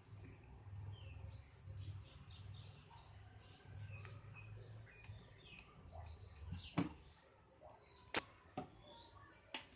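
Many faint high chirps, like small birds twittering, over a low rumble, with a few sharp clicks in the last three seconds.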